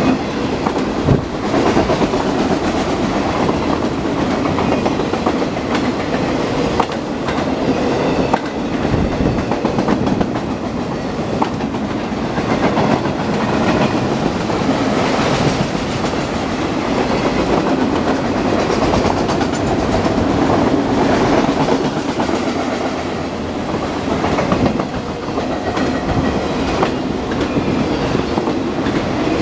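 Autorack freight cars rolling past at speed: a steady rumble and rattle of steel wheels on rail, with scattered sharp clicks of wheels over the track.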